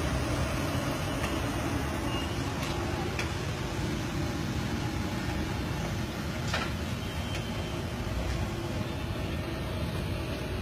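Steady low street noise with a continuous rumble, broken by a few light clicks, the loudest about six and a half seconds in.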